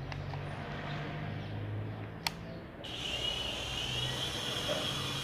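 A sharp click, then about half a second later the small electric rotor motors of an MJ-series 2.5-channel infrared toy helicopter start suddenly with a high-pitched whine. The whine rises a little as the rotors spin up, then holds steady.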